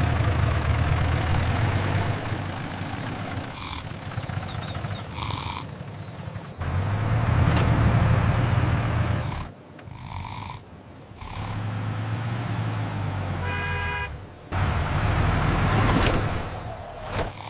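Tractor engine sound effect rumbling in several cut segments. A few brief higher-pitched blips and a short honk-like tone break in.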